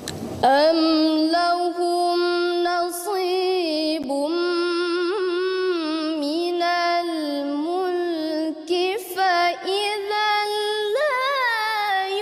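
A young woman's voice in melodic Quran recitation (tilawah), drawing out long held notes with wavering ornaments. It starts about half a second in, after an intake of breath, and climbs higher near the end.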